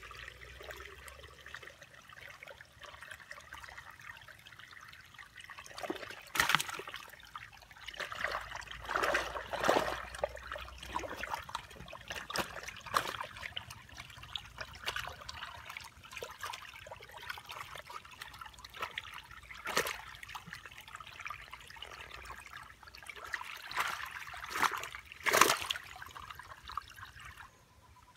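Muddy water trickling and running through a woven bamboo fish trap set in a small channel, with several louder splashes, the loudest near the end.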